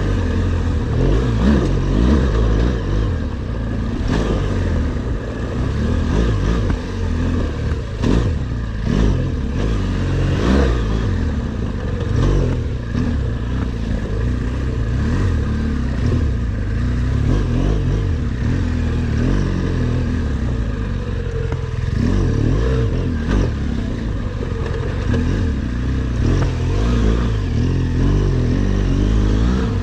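BMW R1200GSA boxer-twin engine running off-road, its pitch rising and falling with the throttle, with scattered knocks and clatter.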